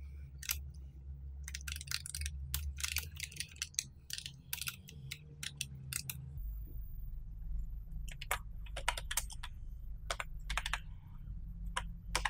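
Computer keyboard being typed on: quick runs of keystrokes with short pauses between, typing a line of text. The keystrokes come thickly for the first half and more sparsely near the end.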